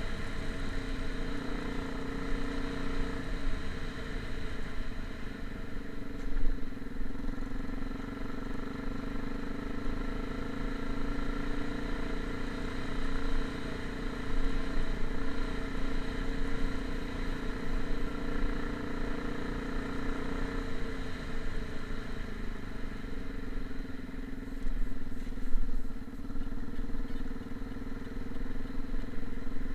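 An engine running steadily, its note shifting slightly a couple of times, with a few brief knocks.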